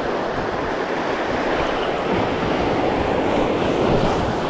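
Sea surf breaking and washing over shoreline rocks in a steady rush of white water.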